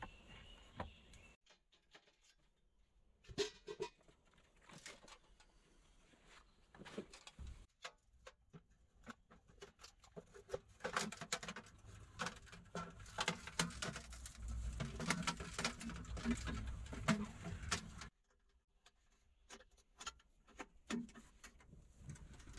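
Scattered knocks and clatter of hands working with wood and sheet metal: logs being laid on a log wall, then a folding sheet-metal stove box being handled. The clatter is busiest and loudest from about 11 to 18 seconds in, then thins to a few light clicks.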